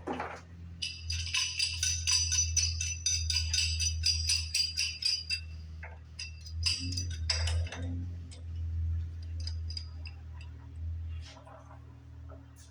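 Rapid metallic jingling, shaken about five times a second for roughly four seconds, with a shorter burst of clinking near the middle, over a steady low hum.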